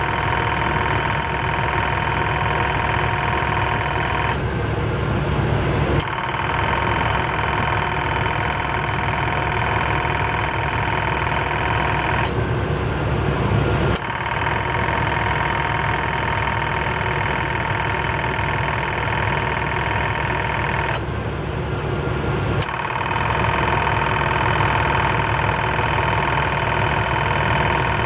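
Chevrolet Tahoe engine running with an abnormal noise from its air-conditioning compressor: a steady mechanical whine over the engine. The whine cuts out three times for under two seconds each, with a click at the start of each gap, then returns.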